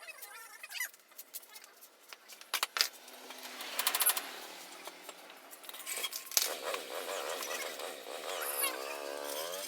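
Metal hand tools clinking and knocking against a motorcycle wheel while the deflated tubeless tyre is worked free of the rim, as scattered sharp clicks. In the second half a wavering, voice-like sound comes in under the tool noise.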